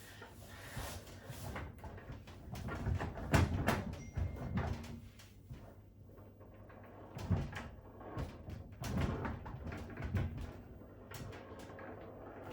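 Irregular low clunks, knocks and small clicks from handling the back of a new washing machine while its transit bolts are worked loose with a spanner, loudest about three and a half seconds in.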